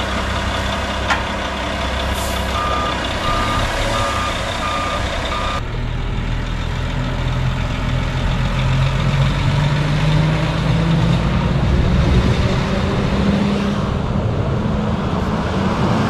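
Ready-mix concrete truck's diesel engine running, with its reversing alarm beeping about twice a second for a few seconds. After a sudden change in the sound, the engine note rises slowly over several seconds as the truck pulls away.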